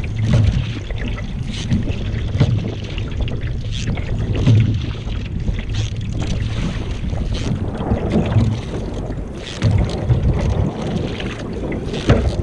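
Canoe paddle strokes splashing in the water, a stroke about every two seconds, over wind buffeting the microphone.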